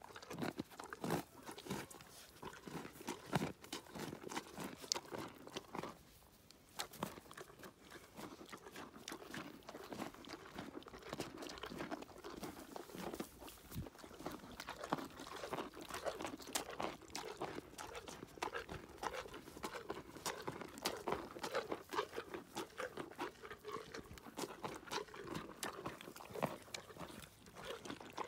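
A pony crunching and chewing carrots close up: a steady run of crisp crunches.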